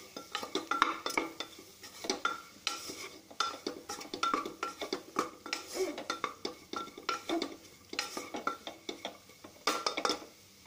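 Metal spoon stirring fried potatoes, onions and spices in an open pressure cooker, scraping and clinking against the pot about two or three times a second with a short ringing note. The garam masala is being mixed into the masala.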